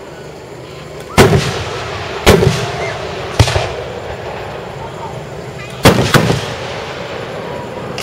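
Aerial firework shells bursting: three booms about a second apart, then two in quick succession, each trailing off in a rumbling echo.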